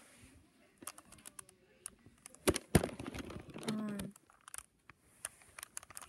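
Plastic Rubik's cube being turned by hand: a run of irregular sharp clicks as its layers are twisted, the loudest two close together about two and a half seconds in.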